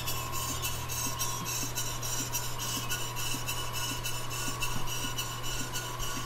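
Early-1900s Sipp Corliss model steam engine running steadily, beating in a quick, even rhythm of about four strokes a second over a constant low hum.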